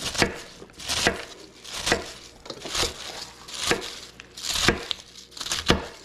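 Knife chopping on a cutting board: seven steady, evenly spaced cuts, about one a second.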